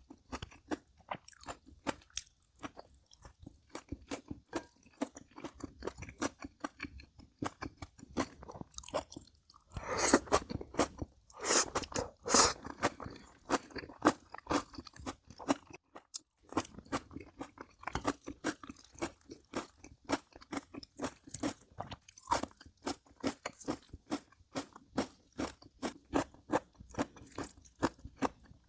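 A person chewing crunchy food up close, a fast run of moist crunches and clicks, with a louder, denser stretch of crunching about ten to twelve seconds in.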